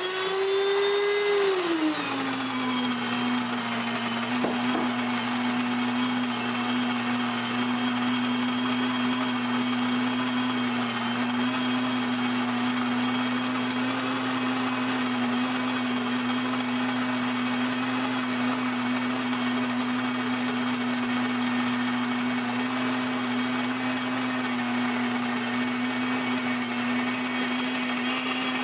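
WonderMill electric impact grain mill running loud while grinding wheat berries into flour. Its motor whine is high just after switch-on, drops lower about two seconds in, then runs steady under a constant rushing hiss.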